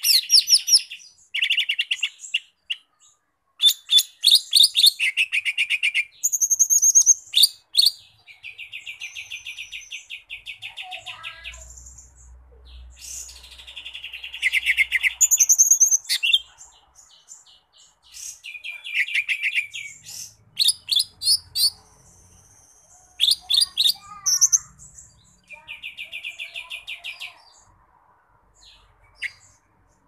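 Caged male cucak ijo mini (green leafbird) singing a long, varied song. Clear whistles, fast rattling trills of rapidly repeated notes and sharp high chirps come in phrases separated by short pauses.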